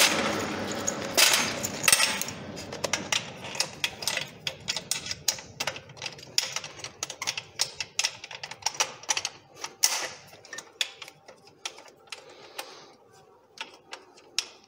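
Quick, irregular metallic clicks and rattles of a two-piece metal rescue stretcher being worked at its joint and pins by hand. There are a few louder knocks about a second and two seconds in and again near ten seconds, and the clatter thins out toward the end.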